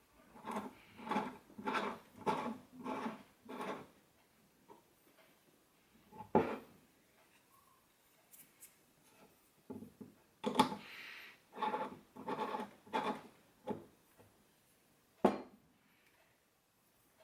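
Jack Leveler tamper twisted back and forth in a portafilter basket, metal rasping against the basket rim in two runs of quick rubbing strokes. Each run is followed by a single sharp metal knock.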